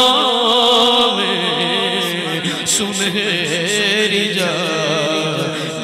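Man singing an Urdu naat into a microphone without words: a long held note for about a second, then a drawn-out, wavering melismatic run.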